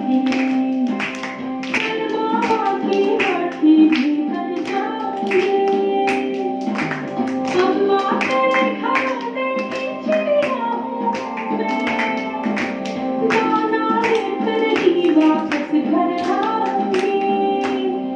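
A song playing: a sung vocal melody with gliding, ornamented notes over a steady beat of percussion strikes.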